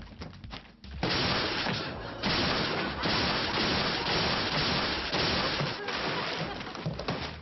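A cardboard parcel being battered and crushed by hand: continuous loud crackling, crumpling and banging of cardboard and paper, starting about a second in and briefly letting up about two seconds in.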